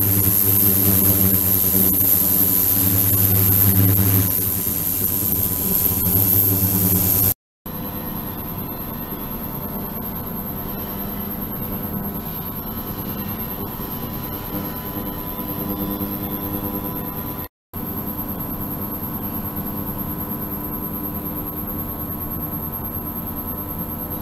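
A 72 kHz, 300 W ultrasonic system running through an immersible transducer in a water-filled plastic tank, heard as a steady hum with a thin high whine over it. The sound cuts out briefly twice, about seven and seventeen seconds in, and is quieter after the first cut.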